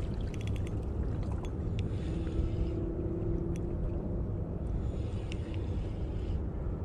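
Steady low rumble of wind on the microphone, with scattered light clicks and ticks from the spinning reel and line as a hooked fish is played. A faint steady hum comes in briefly a little after two seconds.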